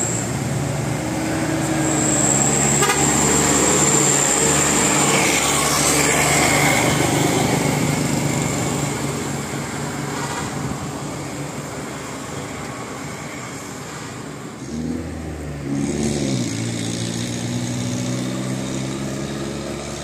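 A motor vehicle running steadily, with its engine note rising and falling briefly about fifteen seconds in.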